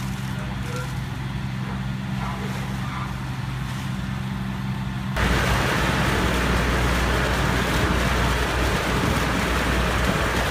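A steady low engine drone, then about five seconds in an abrupt change to loud rushing water as a large supply hose pours into a portable drop tank, with a low engine rumble underneath.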